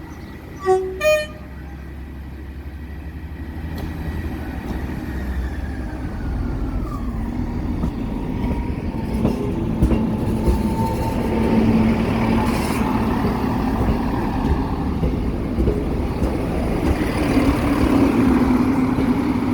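Train sounding two short toots on its horn, then approaching and running over the level crossing, its engine and wheels growing steadily louder.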